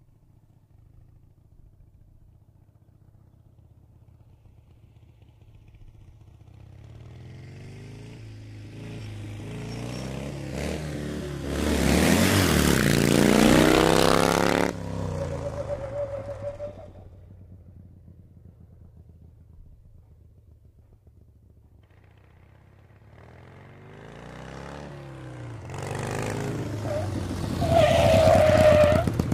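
Motorcycle engine and rushing air while riding. Quiet at first, it builds to a loud rise in engine pitch in the middle that drops off suddenly, then swells again near the end.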